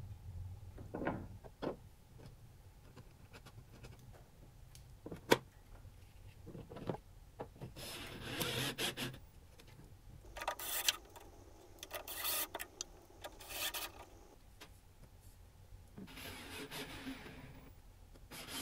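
Hand-tool assembly work on a car tailgate: a few sharp clicks and knocks as a wrench tightens a fitting, then several short bursts of a cordless drill/driver running screws in, each about a second long.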